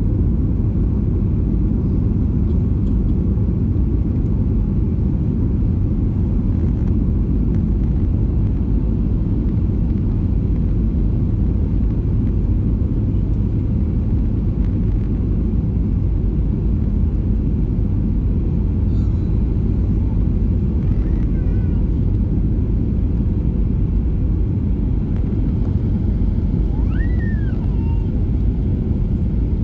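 Steady low cabin rumble of a Boeing 737-800 jet airliner descending on approach, engine and airflow noise heard from a window seat inside the cabin.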